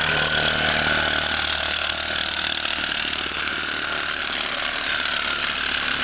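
Electric reciprocating saw cutting through a car's laminated-glass rear window, its motor running steadily with the blade rasping through the glass. A slight falling whine rides over it, with a steady low hum underneath.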